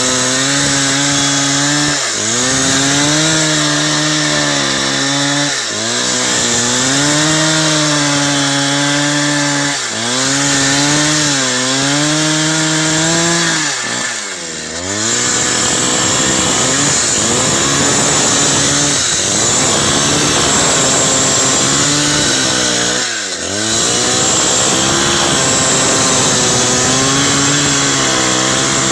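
Two-stroke chainsaw running near full throttle, as in cutting wood. Its engine note dips briefly in pitch and recovers about five times, most deeply near the middle and again about 23 seconds in.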